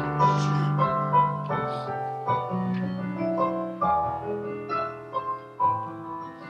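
Piano playing slow chords, a new chord struck every second or two, growing slightly softer near the end.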